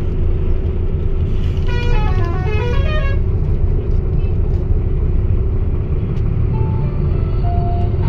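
Steady din of a crowded outdoor goat market, a constant low rumble with a steady hum under it. About two seconds in, a quick run of falling tones sounds for about a second, and a few short single tones come near the end.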